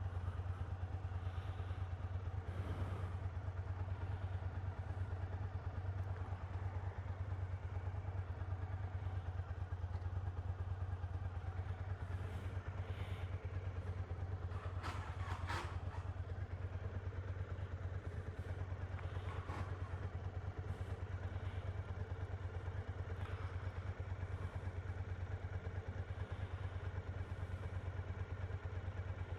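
Motorcycle engine idling steadily with a low, even drone, and a couple of brief clicks about halfway through.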